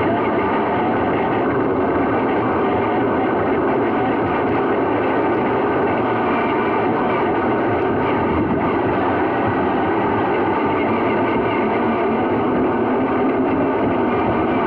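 Motor and gear train of a 3D-printed scale-model Land Rover Defender 110 running steadily as it drives, an even whirring whine heard from inside its plastic cab.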